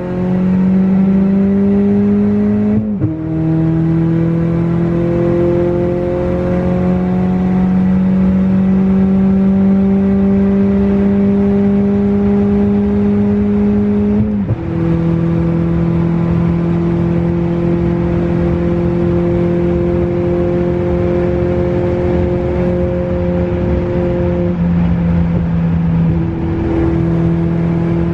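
Cabin sound of a 2018 Honda Accord's turbocharged 1.5-litre four-cylinder engine pulling under hard acceleration at high highway speed. Its pitch climbs slowly and drops with an upshift about three seconds in and again about halfway through, then holds fairly steady.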